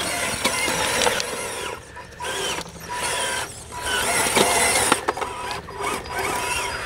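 Electric motor and geared drivetrain of an RC4WD Trail Finder 2 scale crawler truck whining and grinding as it crawls over rocks and up a steep dirt bank. The whine rises and falls with the throttle, and there are a few sharp clicks.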